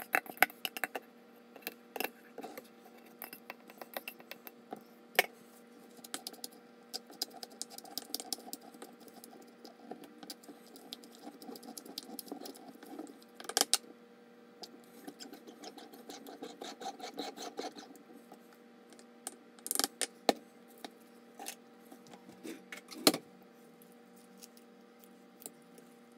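Shredded cabbage being packed into a glass jar by hand: rustling and crunching with many light clinks and knocks of glass and wood, and a few louder knocks. A faint steady hum runs underneath.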